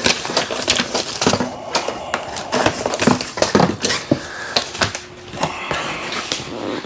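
Ink cartridge packaging being handled and opened: irregular sharp clicks and crinkling of plastic and cardboard.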